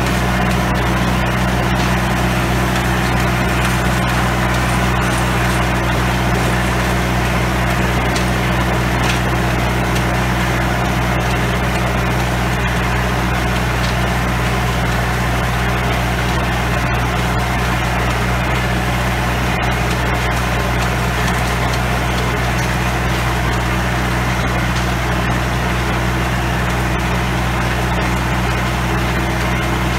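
Antonio Carraro TRX 9900 tractor's diesel engine running steadily at a constant speed under load, driving a rear rotavator that is tilling the soil.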